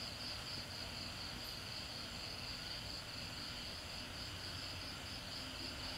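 Faint, steady high-pitched insect trill, unbroken and slightly wavering, with a faint low hum beneath it.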